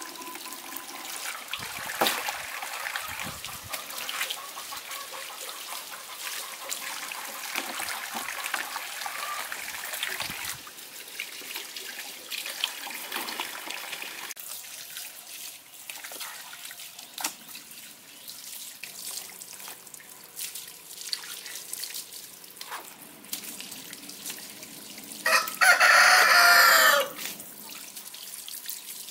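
Water running from a tap and splashing on wet concrete, with occasional knocks and splashes as fish are handled. About 25 seconds in, a rooster crows once, loudly, for under two seconds.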